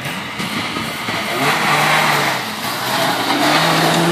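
Suzuki Samurai 4x4's engine revving under load as it climbs a steep dirt slope, the revs rising twice, with a rushing noise.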